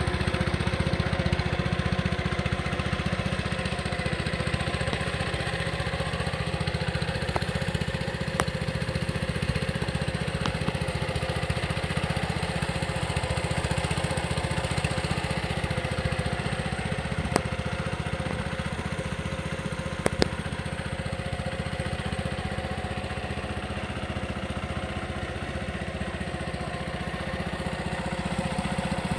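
Case 1816 skid steer's engine running steadily, with a few sharp clicks along the way.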